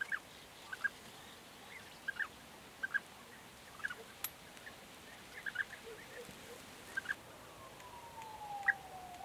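European bee-eaters calling: short liquid notes, often in pairs, about once a second. A sharp click comes about four seconds in, and a long, slowly falling whine runs under the calls near the end.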